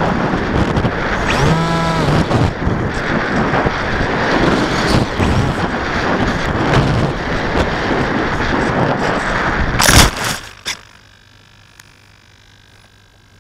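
Wind rush and motor and propeller noise on an FPV model aircraft's onboard camera during low flight, with a brief rise and fall in motor pitch about two seconds in. About ten seconds in it crashes into tall weeds with two hard knocks, and the motor noise cuts off, leaving only a faint low hum.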